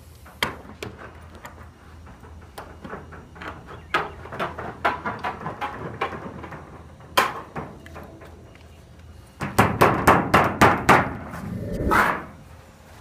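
Aviation snips cutting a hole in a sheet-metal pool wall panel: a string of sharp metallic snips and crunches, coming in quick runs, with the fastest and loudest run of about eight cuts about three-quarters of the way through.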